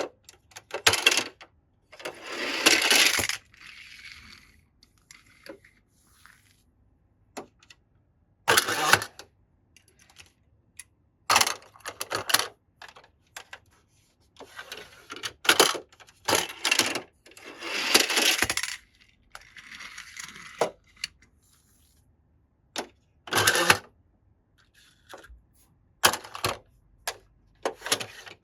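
Toy cars and plastic track pieces being handled: irregular clicks and clatters, with several longer rattling rushes of about a second each.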